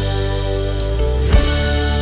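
Instrumental background music with sustained held notes and a single percussive hit a little past halfway.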